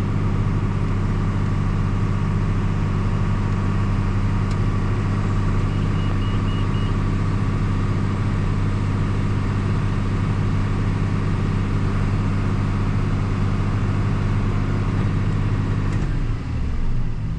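Big John Deere farm tractor's engine running steadily at an even speed, pulling a grain cart; its note changes a little over a second before the end.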